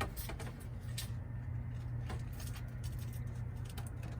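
Handling noises at a car seat headrest as it is raised and a plastic sneeze guard is worked on: scattered light clicks and rustles, the sharpest right at the start, over a steady low hum.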